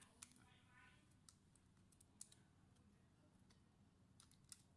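A handful of faint, sharp clicks at irregular intervals: small plastic connector latches and ribbon cables on a Dell Inspiron 3501 laptop's motherboard being worked by hand during disassembly.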